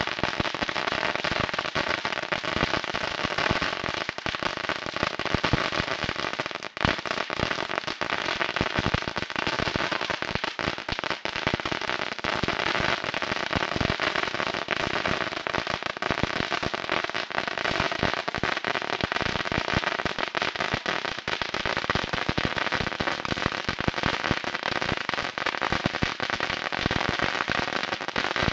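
A long string of firecrackers going off in a continuous, rapid stream of pops, with one louder bang about seven seconds in.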